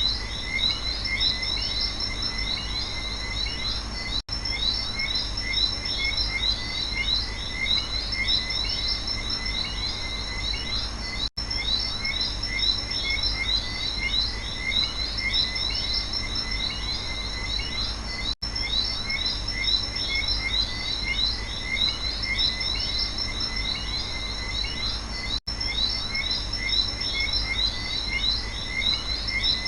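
Night rainforest chorus of frogs and insects: dense, fast chirping calls over a steady high insect drone and a low rumble. The whole sound cuts out for an instant about every seven seconds.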